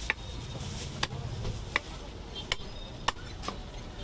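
Butcher's cleaver chopping goat meat on a wooden log chopping block: about six sharp chops at an uneven pace, roughly one every half to one second.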